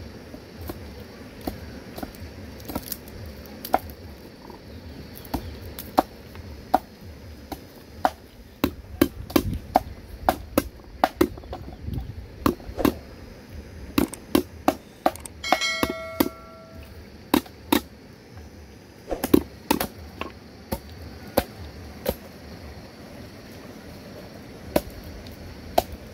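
Knife chopping on a wooden log: irregular sharp knocks, sparse at first and coming in quick runs through the middle. A short ringing tone sounds a little past the middle.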